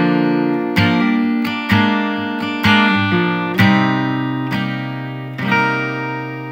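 Acoustic guitar music: strummed chords struck about once a second, the last one ringing out and slowly fading.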